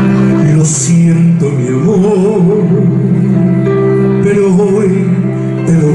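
A man singing a slow ballad with wide vibrato, accompanied by held chords on a Korg electronic keyboard.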